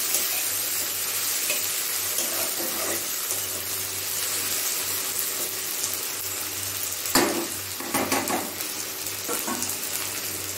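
Onions, tomatoes and green chillies sizzling steadily in hot oil in a kadai while a metal spatula stirs them, scraping and knocking against the pan; the sharpest knocks come about seven and eight seconds in.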